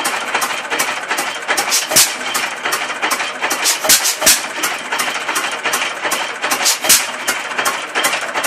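1913 Victoria stationary engine running: a fast, even clatter of sharp clicks, about five a second, with louder knocks coming at irregular gaps.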